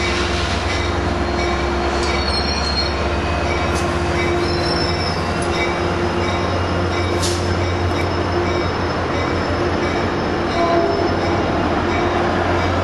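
Metrolink commuter train with an F59PHI diesel locomotive running by, heard from a car as a steady rumble with a held tone over it and a few brief high squeals.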